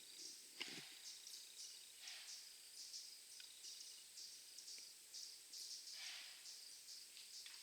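Faint outdoor ambience of insect-like chirps, high and short, repeating every half second or so over a steady high hiss. Two soft breathy rushes come through, about two seconds in and again about six seconds in.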